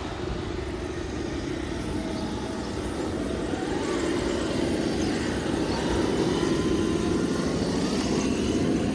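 Electric RC rock crawler's motor and drivetrain running, a steady mechanical whine and grind with its pitch drifting up and down as the throttle changes.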